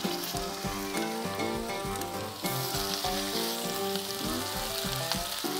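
Oil sizzling and spitting in a hot cast-iron pan. The sizzle grows louder and hissier about two and a half seconds in.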